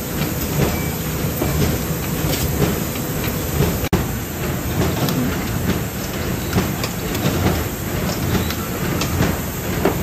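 Corrugated box folder-gluer running: a steady, loud low machine noise of belts and rollers, with frequent small clicks and clatter. The sound breaks off for an instant about four seconds in.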